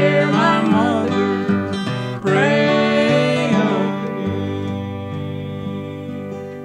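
Closing bars of an old-time country gospel song: a voice sings a final line over acoustic guitar, then the last chord rings on and slowly fades.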